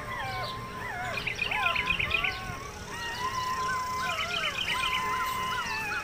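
Newborn puppies squeaking and whining, several at once, in short overlapping cries that rise and fall in pitch, some drawn out into a thin steady whine and some in quick high squeaks.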